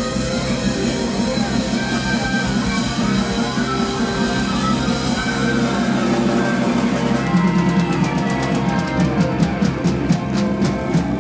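Live rock band playing an instrumental passage with drum kit and lap steel slide guitar. From about seven seconds in, the drums break into rapid, quickening hits building towards a climax.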